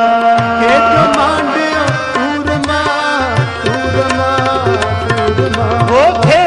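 Sikh kirtan music between sung lines: tabla keeping a steady rhythm under a sustained harmonium-style melody, with a rising slide in pitch near the end.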